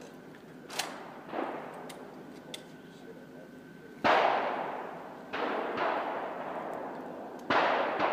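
Three loud gunshots, about four seconds in, a little over five seconds in and about seven and a half seconds in, each echoing away over about a second. Fainter pops come earlier.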